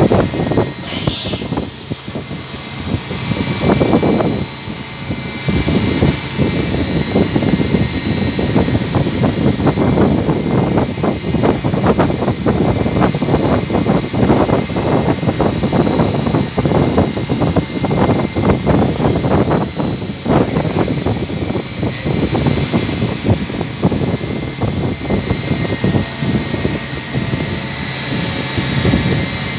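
CNC vertical machining centre running: a steady mechanical rushing noise with a faint high whine held throughout.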